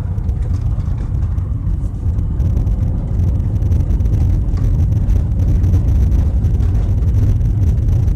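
A 2000 VW Eurovan camper on the move: a steady, loud, low rumble of road and engine noise.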